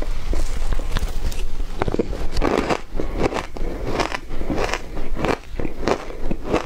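Frozen matcha shaved ice being bitten and chewed off a spoon: a steady run of crisp crunches, a few a second.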